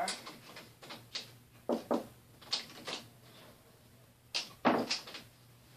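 A few faint, short knocks and clicks in two small clusters, about two seconds in and again near four and a half seconds, over a low steady hum.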